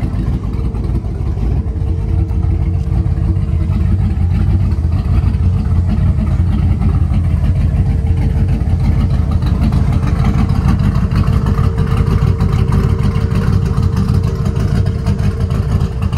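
Twin-turbo 383 ci stroker small-block V8 of a 1955 Chevrolet 3100 pickup running steadily with a deep, even rumble.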